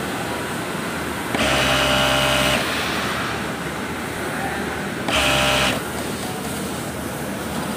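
Juki industrial sewing machine stitching in two short runs, one of a little over a second about a second and a half in and a shorter one about five seconds in, its motor giving a pitched whine over a steady background noise.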